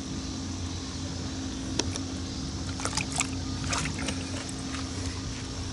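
Steady low mechanical hum, with a few short sharp clicks between about two and four seconds in.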